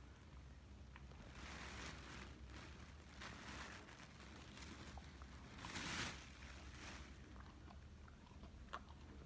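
A dog eating by hand and off the floor: faint chewing and licking, with soft noisy bursts and a few small clicks, the loudest burst about six seconds in.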